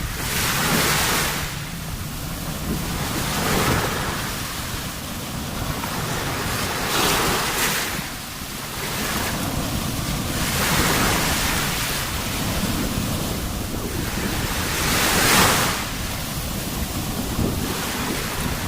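Sea waves surging and breaking, rising in about five swells, the loudest near the end, over a steady low rumble of wind on the microphone.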